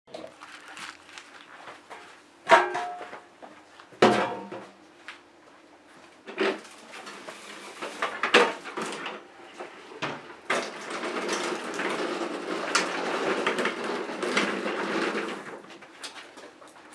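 Garden tools and equipment being moved about on a concrete garage floor: sharp metal knocks with a brief ring about two and a half and four seconds in, lighter knocks after that, then several seconds of steady scraping or rolling.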